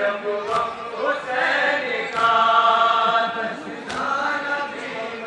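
A group of men chanting a noha, a Shia mourning lament, in unison, with the voices holding a long note about two seconds in.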